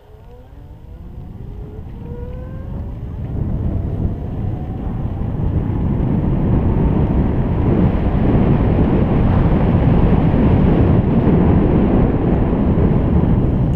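Wind rushing over the microphone of a moving bicycle, growing louder over the first several seconds as the bike picks up speed and then staying loud and steady. A faint rising whine can be heard in the first few seconds.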